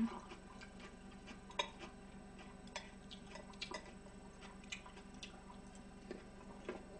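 Eating sounds at the table: scattered, irregular faint clicks of chopsticks on dishes and food, over a faint steady hum.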